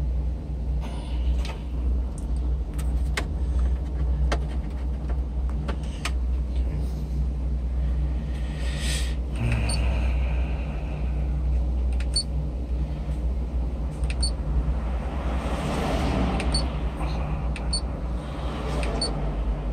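A steady low car rumble with a hum, the vehicle idling, under scattered sharp clicks and rustles as wiring and radio parts are handled. The new head unit is not yet putting any sound through the speakers.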